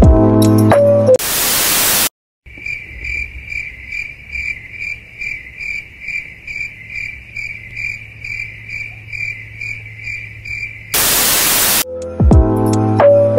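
Crickets chirping steadily, about two to three chirps a second, as an edited-in sound effect. A burst of TV-static hiss comes before and after it. Background music cuts off about a second in and comes back near the end.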